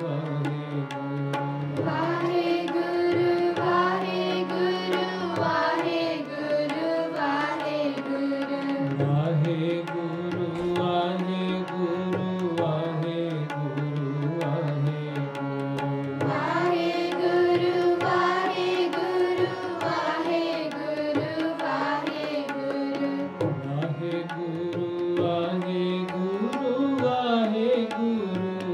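Sikh kirtan: a hymn sung to harmonium and tabla, with the harmonium holding steady reed chords and the tabla keeping a running beat under the singing voice.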